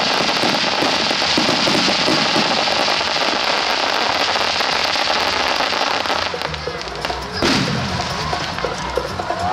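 Aerial fireworks barrage: a dense, continuous crackling of many bursting stars, with one loud boom about seven and a half seconds in.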